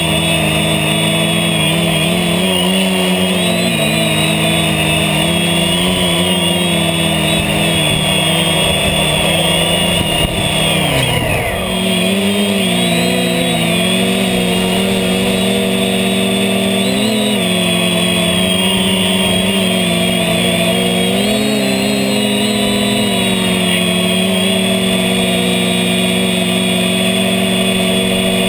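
Drone of a hexacopter's six electric motors and propellers, recorded by the camera on board, its steady whine wavering in pitch as the throttle changes. About ten seconds in, the pitch falls sharply as the motors slow, then rises back within a second or two.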